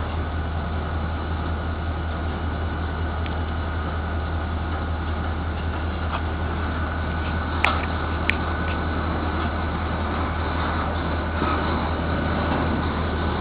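Steady low rumble and hiss of rail-yard machinery, with two sharp clicks about eight seconds in.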